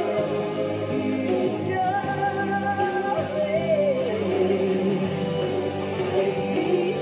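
Background music: a slow piece with held chords under a wavering melody line, without words.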